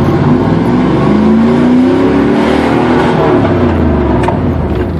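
1994 Pontiac Trans Am's LT1 small-block V8 at full throttle on a launch, sounding through a Flowmaster catback exhaust with a Spintech muffler. The engine note climbs, drops at an upshift of the 4L60E automatic about two and a half seconds in, then climbs again and eases off near the end.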